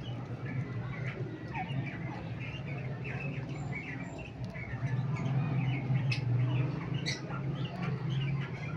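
Cockatiels chirping, many short quick chirps one after another over a steady low hum, with a few brief clicks.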